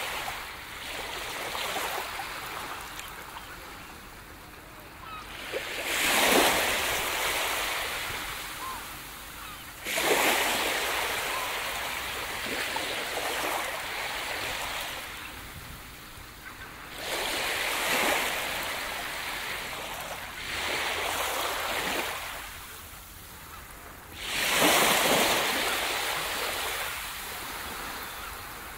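Surf on a beach: about five waves break one after another, each a sudden rush of water that fades away over a few seconds before the next.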